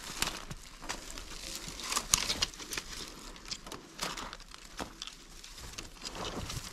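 Irregular cracking and snapping of twigs and dry brush, with rustling between the sharper cracks.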